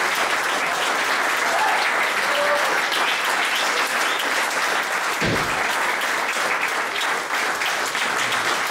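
Audience applauding steadily, with a few brief calls from the crowd and a single dull thump about five seconds in.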